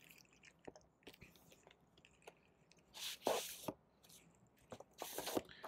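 Crinkling and rustling of paper and plastic as an LP jacket is opened with a blade and its paper inner sleeve holding the record is slid out, with small ticks throughout and two louder rustles about three and five seconds in.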